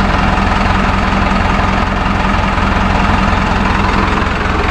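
Sonalika DI-750 III tractor's diesel engine idling steadily, heard close to the engine.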